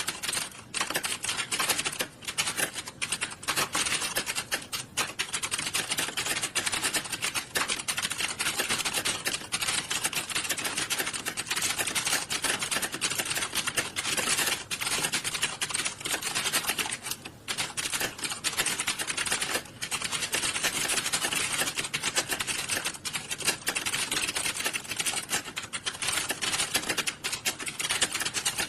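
Many computer keyboards typed on at once, a dense, continuous clatter of overlapping key clicks with only brief lulls, as in a hall full of candidates sitting a typing test.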